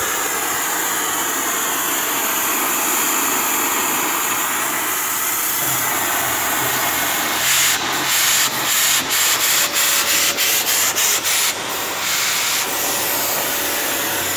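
Power grinder running with a steady high whine. In the middle it breaks up into short repeated pulses, about three a second, then runs steady again.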